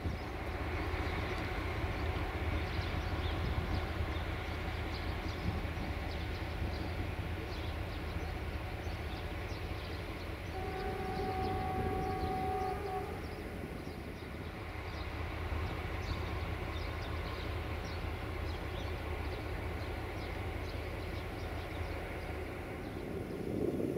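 Diesel locomotive engine running with a steady low rumble, and a train horn sounding once, a held chord of about two seconds, near the middle.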